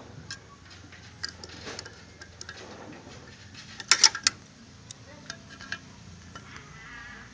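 Metal tools and parts clinking and tapping in scattered sharp knocks, with a quick cluster of louder metallic strikes about four seconds in.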